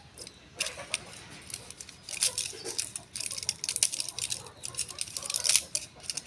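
Tablets being pressed out of blister strips: irregular crackling and clicking of foil and plastic, in several short clusters.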